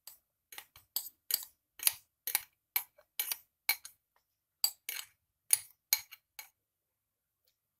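Metal spoon clinking against a glass mixing bowl while scraping khaman batter out into an aluminium plate: a quick, irregular run of light taps that stops about a second before the end.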